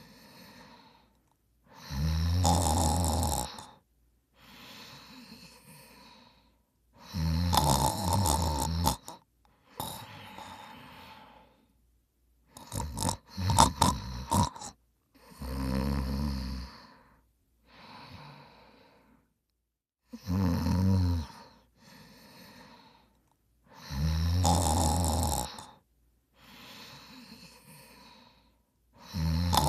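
A person snoring: a loud, rattling snore alternating with a quieter breath, repeating about every four to five seconds. One snore about halfway through comes out choppy and broken, like a snort.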